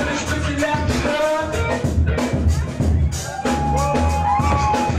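Hip-hop music with a steady bass-drum beat. A held melodic line comes in about three and a half seconds in.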